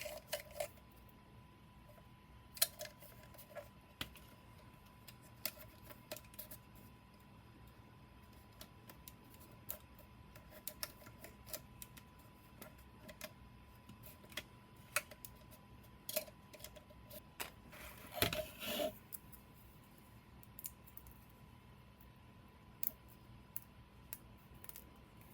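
Scattered light clicks and taps of small hard objects being handled, with a brief scraping rustle about 18 seconds in. A faint steady tone runs underneath.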